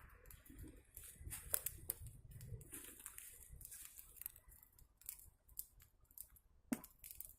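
Faint crackling of a campfire: irregular small snaps and pops, a few sharper ones about one and a half to two seconds in and another near the end.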